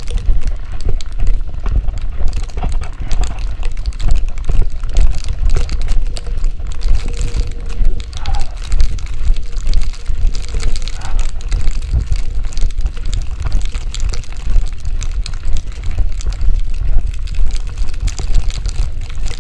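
Strong, gusty snowstorm wind buffeting the microphone, a loud low rumble that rises and falls with each gust.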